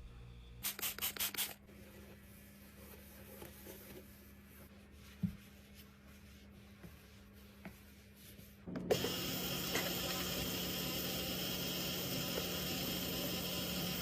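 Hands handling and rubbing packaging or containers while restocking a mini fridge. There are five quick scratchy strokes near the start, a few faint clicks, then a steady hiss from about nine seconds in.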